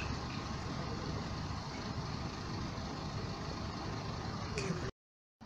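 City bus diesel engine running as the bus pulls away from a stop, with a brief high hiss near the end. The sound cuts off abruptly just before the end.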